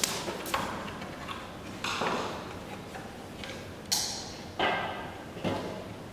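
About six irregular knocks and clicks, each with a short ringing tail, from objects being handled and set down.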